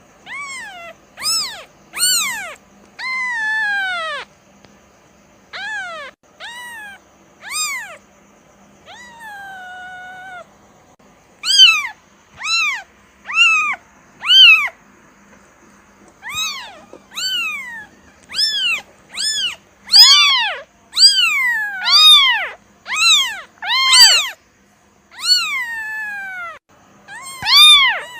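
Kitten meowing over and over: short, high-pitched mews that rise and fall, about one a second, with a few longer drawn-out cries and brief pauses between runs.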